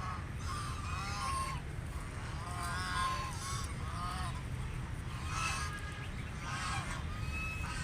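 Domestic ducks quacking in groups of short calls, one group every second or so, over a steady low rumble.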